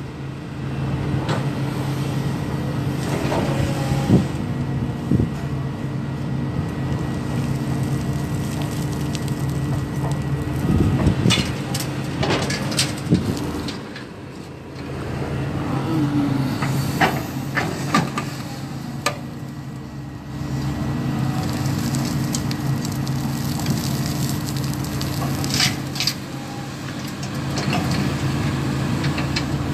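Caterpillar 320D hydraulic excavator's six-cylinder diesel engine running steadily under working load while digging and loading soil, with scattered clanks and scrapes of the bucket and material. The engine eases off briefly twice.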